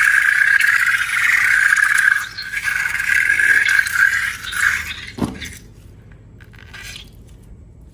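Air squealing out through a stretched balloon neck for about five seconds. It ends in a quick falling glide, followed by a few faint clicks.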